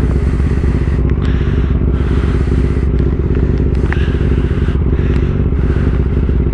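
Motorcycle engine idling steadily while stopped, with a few light scrapes and clicks from the helmet strap being fastened close to the microphone.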